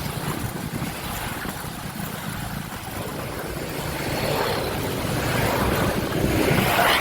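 A motor vehicle running past with a steady rumble, growing louder over the second half as it comes close, then easing off at the end.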